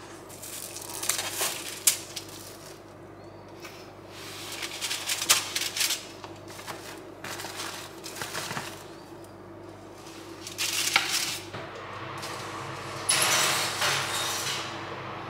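Kitchen handling sounds: crinkling aluminium foil on a baking tray and the clatter and clicks of a pizza and utensils being handled on it, in irregular bursts over a faint steady hum.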